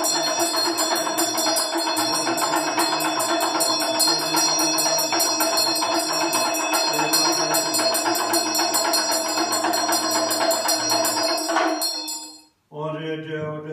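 Tibetan ritual hand bell rung rapidly and continuously, a dense shimmering ring with a fast even pulse, over a man's low chanting. The ringing cuts off about twelve seconds in, and the deep chant carries on alone near the end.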